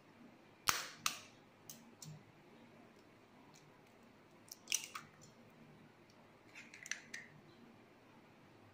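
A hen's egg cracked over a stainless steel pot: two sharp taps on the shell about a second in, then scattered fainter cracks and clicks as the shell is pulled apart over the pot.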